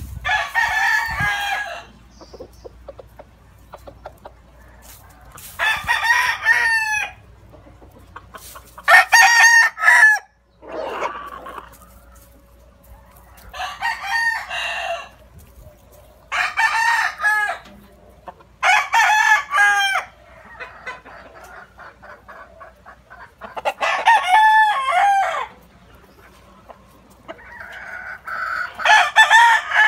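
Gamefowl roosters crowing again and again: about eight crows, each a second or two long, a few seconds apart.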